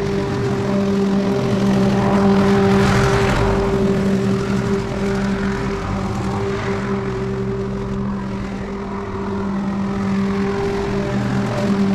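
Walk-behind lawn mower running at a steady pitch as it is pushed across the lawn, growing louder as it comes near, about two to three seconds in and again near the end.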